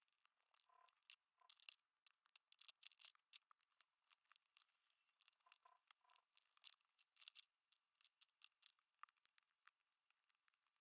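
Near silence, with faint scattered clicks of plastic LEGO bricks being pressed together by hand.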